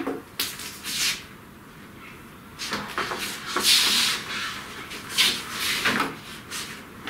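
Bundles of electrical cables rustling and scraping as they are pulled and handled by hand, in a few irregular bursts, the longest and loudest in the middle.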